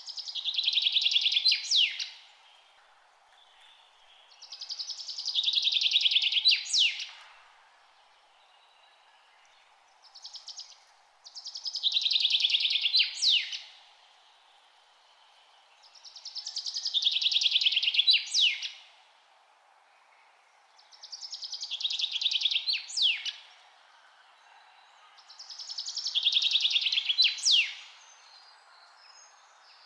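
A songbird repeating the same song phrase six times, about every five seconds. Each phrase is a two-second fast trill that swells and ends in a couple of sharp, high slurred notes.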